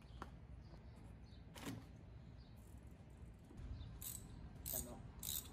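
A few sharp, irregular clicks and light clinks of hand tools and engine parts being worked on, over a faint low hum. The clicks come more often in the second half.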